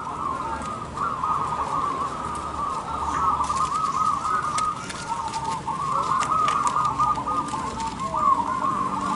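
Several zebra doves (perkutut) cooing together, their repeated phrases overlapping without a break.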